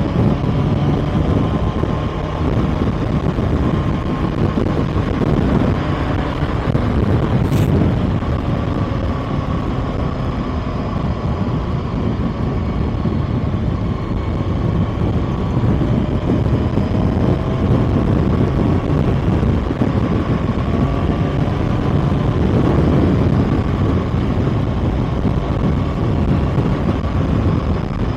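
Kawasaki ZX-6R inline-four engine running at a steady cruise, its pitch drifting gently with small throttle changes, with wind rushing over the microphone. A brief sharp click about seven seconds in.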